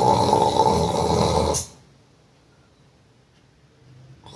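A man's loud, put-on snore for a prank, rasping and drawn out, that stops about a second and a half in. After a quiet gap, another snore starts right at the end.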